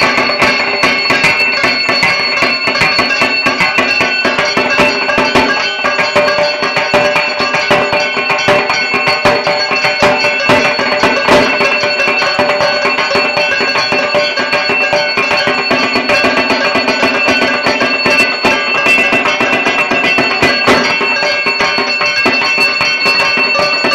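Dhak drums played in a fast, dense, unbroken rhythm, over steady high ringing tones.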